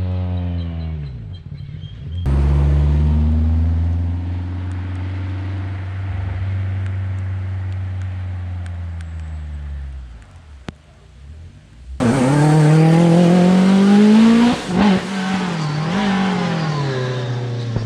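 Rally car engines on a special stage: one car's note falls away, a second starts abruptly and holds a steady drone that slowly drops in pitch before fading. About twelve seconds in a third car comes in loud, revving up hard with a few quick gear changes.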